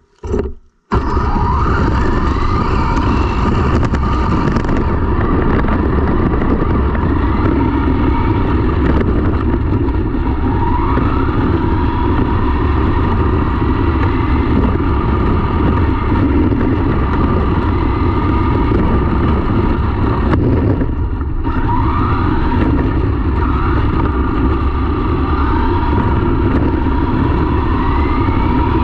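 RC car driving fast on asphalt, heard from a camera riding on the car: a loud, steady rumble of tyres and chassis vibration under a motor whine that rises in pitch several times as the car speeds up. A short burst of noise comes just before it sets off.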